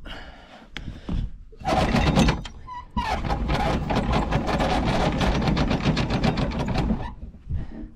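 Anchor chain paying out over the windlass gypsy as the clutch is eased off by hand, a fast metallic rattle of links that starts about two seconds in, pauses briefly, then runs steadily and stops near the end. More chain is being let out so the snubber line can take the load.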